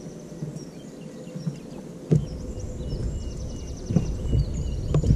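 Small birds chirping and trilling repeatedly, with wind rumbling and buffeting the microphone from about two seconds in.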